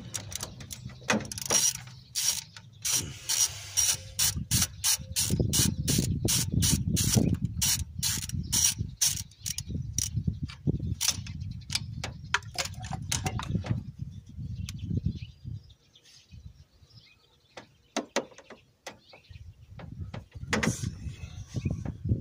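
Socket ratchet on a long extension clicking in a steady run, about three clicks a second, as a throttle-body mounting bolt is backed out. The clicking stops about two-thirds of the way through, leaving only a few scattered clicks.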